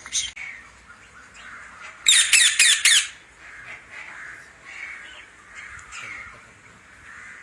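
A bird calls four harsh squawks in quick succession about two seconds in, after a short call at the start. Softer short calls repeat through the rest.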